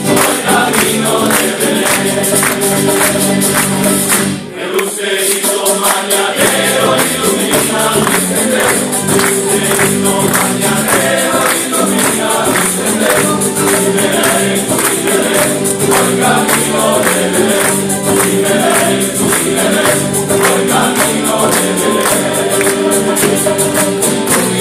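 Male choir singing a Christmas medley over a steady percussion beat, with a short lull about four and a half seconds in.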